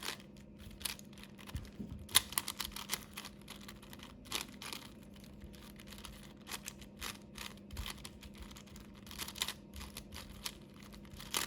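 A 5x5 Rubik's Cube being scrambled: its plastic layers click and clack in quick, irregular runs as they are turned.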